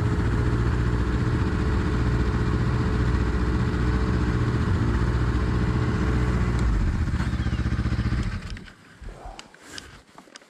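Yamaha four-stroke snowmobile engines idling steadily, then shut off about eight seconds in, leaving only a few faint clicks.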